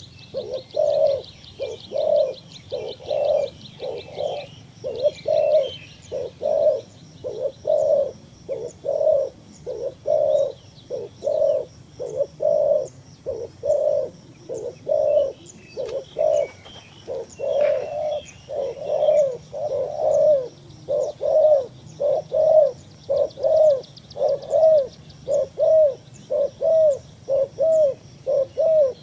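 A dove cooing over and over in short arched coos, a little more than one a second, steady throughout. Fainter high chirping trills come in near the start and again near the end.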